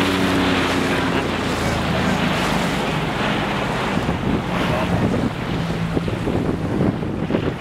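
A small motorboat under way: wind buffeting the microphone and water rushing past the hull, with the engine's low hum fading after about a second.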